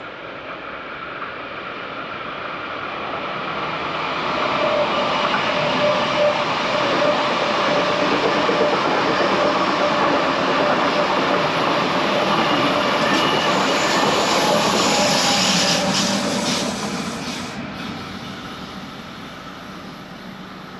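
A train passing by: the rail noise swells over the first four or five seconds, holds steady for about twelve seconds as the train runs past, then fades away.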